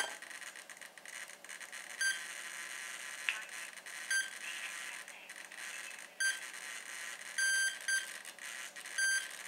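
Spektrum radio transmitter beeping in bind mode: short high beeps about every two seconds, with a longer beep and a quick second one near the end, while it binds to the helicopter's receiver.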